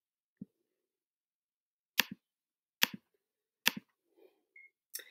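Computer clicks: a faint click about half a second in, then sharp clicks roughly a second apart from about two seconds in, each a quick double click of press and release, as text is selected and recoloured.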